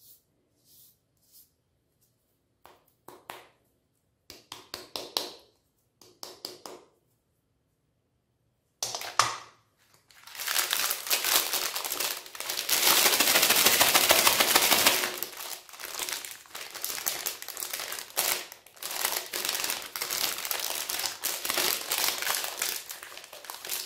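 Plastic ice cream bar wrappers crinkling as they are handled and torn open: a few short rustles at first, then from about ten seconds in a continuous loud crinkling.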